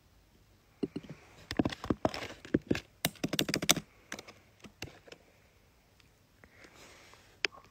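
Fingers tapping and handling the phone close to its microphone: an uneven run of quick clicks and taps, densest from about one and a half to four seconds in, with a last click near the end.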